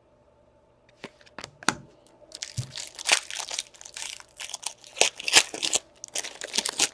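Wrapper of a 2016/17 O-Pee-Chee Platinum hockey card pack being torn open and crinkled. A few sharp clicks about a second in, then several seconds of dense crinkling.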